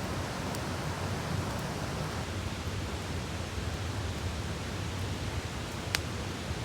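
Campfire burning: a steady hiss and low rumble with an occasional sharp crackle of burning wood, the clearest pop about six seconds in.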